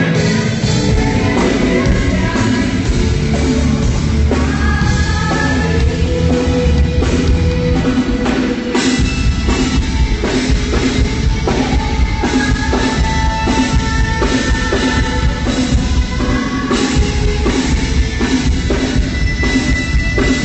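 Rock band playing loud live music at a soundcheck: a drum kit keeps a steady beat under electric guitar.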